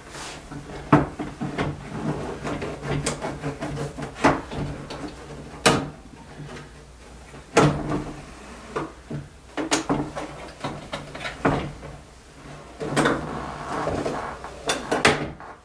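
Light engine unit of a DLP rear-projection TV being worked loose and slid out of its chassis: irregular clicks, knocks and scraping of plastic and metal parts.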